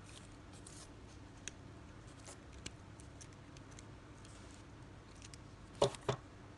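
Metal pliers clicking and ticking faintly as they grip and work the wire and hooks of a fishing rig, with two sharper clicks close together near the end.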